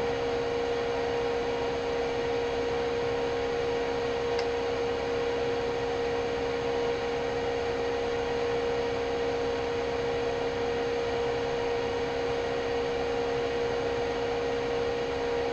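Steady electric motor hum with an even tone, unchanging throughout.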